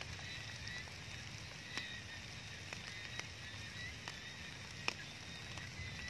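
Water drops falling from rain-wet leaves in scattered, irregular ticks, over a steady high-pitched drone.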